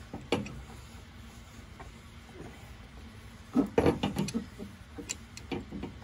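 Metallic clicks and clinks from a hand flaring tool as its feed screw is turned to flare 1/4-inch copper tubing: one click near the start and a cluster of sharper knocks about three and a half seconds in, then a few light ticks.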